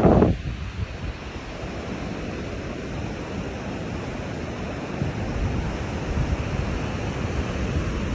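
Surf breaking and washing up on a sandy beach, with wind rumbling on the phone's microphone. A louder rush of noise cuts off abruptly just after the start.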